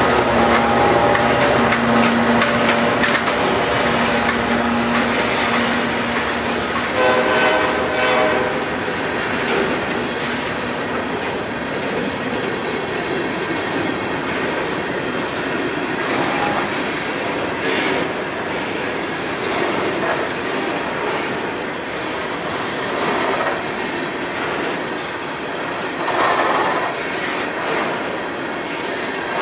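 Coal hopper cars of a freight train rolling past, with continuous wheel and car rattle and clickety-clack over the rails. A horn sounds with held tones in the first several seconds and again briefly about seven seconds in.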